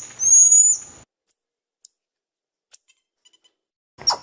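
Marmoset calling with long, high-pitched whistles that rise slightly. The last whistle ends about a second in and is followed by a few faint clicks. A different animal call starts right at the end.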